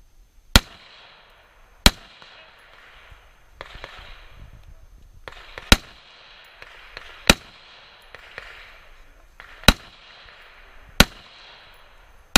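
Rifle shots fired from behind a barricade at a 3-Gun stage: single, sharp shots in three pairs, each pair about a second and a half apart with a few seconds between pairs, and one more shot at the very end.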